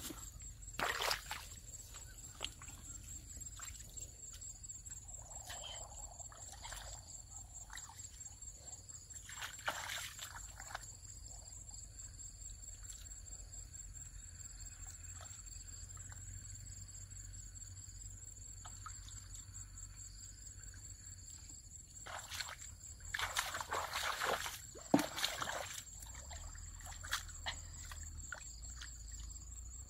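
Water sloshing and splashing in a shallow muddy ditch as someone wades and gropes through it by hand, in short bursts about a second in and around ten seconds in, then a longer, louder spell of splashing near the end. Insects trill steadily at a high pitch behind it.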